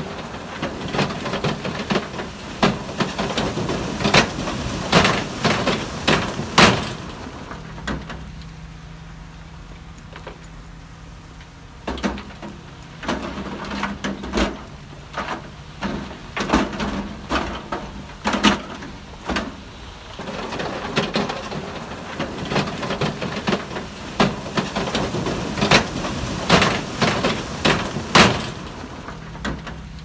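Bulldozer working stones: three bouts of rapid knocking and clatter, each several seconds long, over a steady low engine hum that shows in the lulls.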